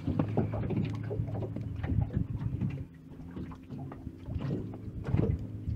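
Small waves lapping and slapping irregularly against the hull of a small metal fishing boat at anchor, over a low steady hum.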